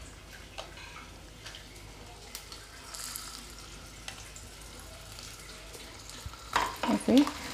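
Stuffed bell peppers frying in hot oil in a nonstick pan, set in stuffing side down, with a soft steady sizzle that flares briefly about three seconds in and a few light taps.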